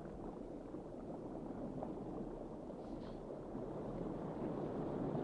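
Faint, low, steady watery rumble with a fine crackle, growing slowly louder, like underwater ambience.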